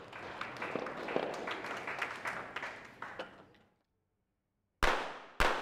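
Spectator noise with scattered clapping that fades out, then after a short silence two sharp .22 Short rapid-fire pistol shots about half a second apart: the opening shots of a five-shot rapid-fire series.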